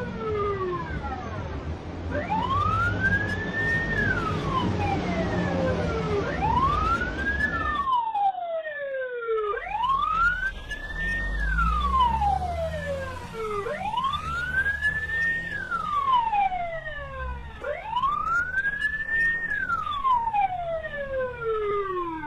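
Police car siren in a slow wail, each cycle rising quickly in pitch and then falling away, repeating about every four seconds, over low traffic rumble.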